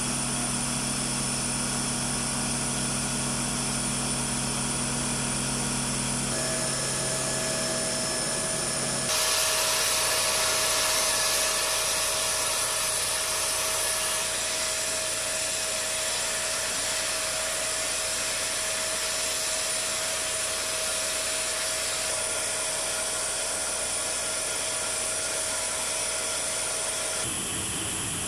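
Steady machinery noise around a cargo aircraft: a held whine over a rushing hiss. The mix shifts abruptly about six and nine seconds in and again near the end.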